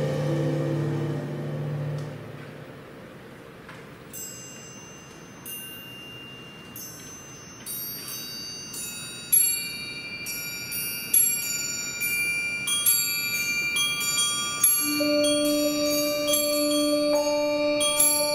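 Percussion ensemble playing mallet keyboard instruments. A low held chord fades away over the first two seconds. After a quiet moment, high bell-like struck notes enter about four seconds in and grow steadily denser, and lower ringing notes join them in the second half.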